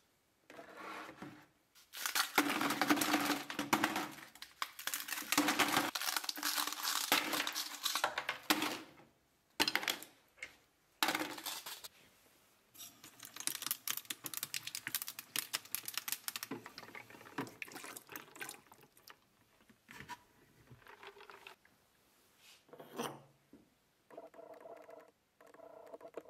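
Ice cubes cracked out of plastic trays and clattering into a plastic bucket, then a tap running water into the bucket onto the ice. Near the end a knock and brief clinks of glassware set down on a table.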